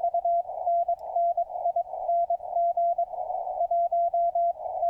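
Morse code (CW) received on a ham radio: a steady 700 Hz tone keyed in rapid dots and dashes from a strong station, about 20 over S9. It plays through a tuned CW speaker, a 2-inch speaker in a PVC elbow. Between the characters the static is narrowed to a hiss around the tone's pitch, and the rest of the band noise is cut away.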